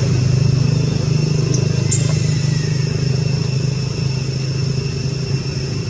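A motor running steadily nearby, a continuous low rumble, with a steady high-pitched whine above it.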